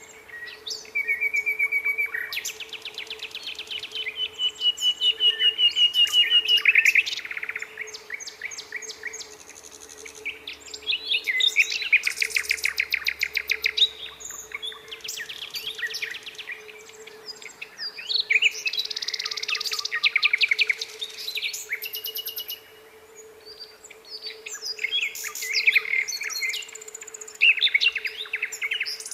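Nightingale singing: a run of varied phrases of rapid repeated notes, trills and pure whistled notes, each a few seconds long with short pauses between. A faint steady hum runs underneath.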